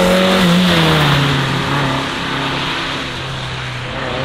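A Volkswagen Polo slalom car's engine pulling hard, dropping in pitch about half a second in, then running steadier and lower. Under it runs the hiss of its tyres on the wet track.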